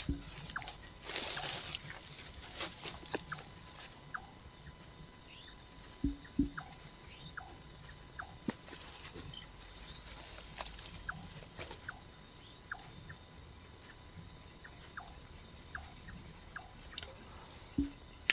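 Night insects trilling steadily on several high pitches, with scattered short chirps from other calling creatures. A few sharp knocks and a brief rustle about a second in stand out against the chorus.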